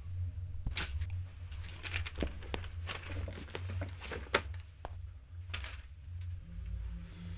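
Sheets of paper and archive files being handled: a series of short, crisp rustles and knocks as pages are shuffled and slid into a bag, over a steady low hum.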